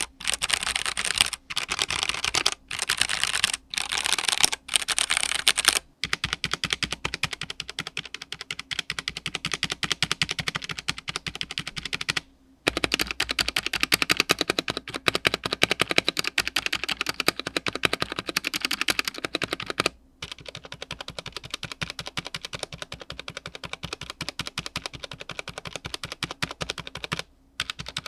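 Fast typing on a Redragon K631 Castor 65% mechanical keyboard, a dense run of key clicks and clacks. It comes in short bursts at first, then long continuous runs with brief pauses. The case has no foam, so the sound is slightly hollow.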